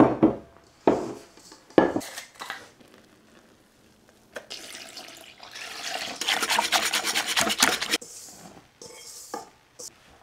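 Kitchenware knocking three times on a wooden countertop, then a spatula scraping flour out of a stainless steel bowl into a ceramic mixing bowl: a fast rasping scrape for a few seconds. A few light taps near the end.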